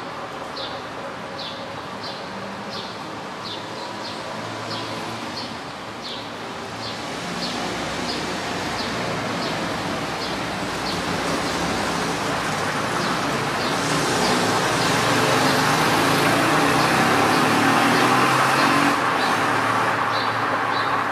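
Water splashing and pattering onto dry leaf litter, building up over several seconds and cutting off suddenly near the end. Throughout, a short high chirp repeats a little under twice a second.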